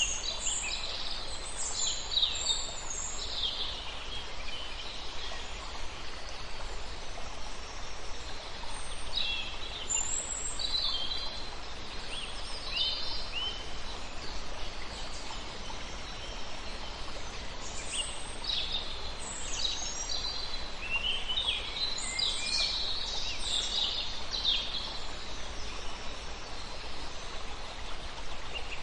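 Small songbirds chirping and trilling in bursts over a steady rush of flowing water from a small river.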